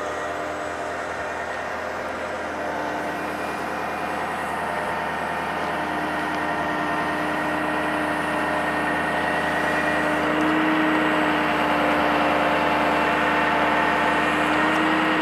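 Bucket truck's 6.0-litre diesel engine running steadily to power the boom hydraulics while the bucket is lowered, with a steady whine over the engine note. It grows slowly louder toward the end.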